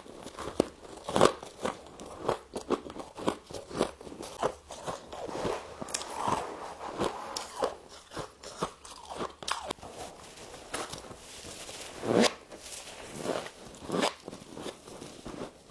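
Close-miked biting and chewing of freezer frost ice, a dense run of crisp crunches with louder bites about a second in and again around 12 and 14 seconds.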